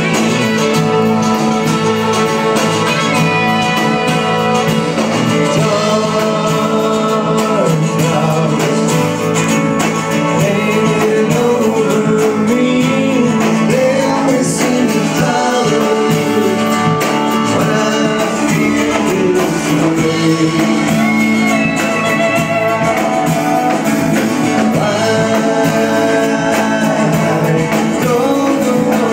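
Live band playing a country-rock song: acoustic and electric guitars, cello and drums, with a man singing lead, recorded on a phone from the audience.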